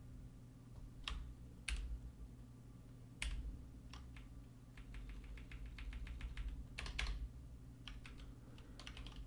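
Typing on a computer keyboard: scattered keystrokes, with a quicker run of them about halfway through, over a faint steady hum.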